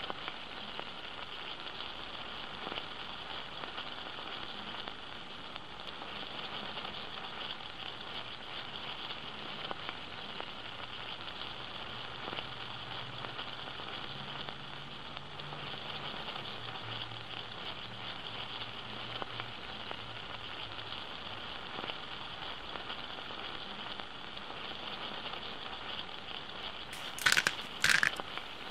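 Diced onions and then sliced mushrooms sizzling and crackling steadily as they sauté in a stainless steel pot. Near the end, a pepper mill grinds in a few short, loud strokes.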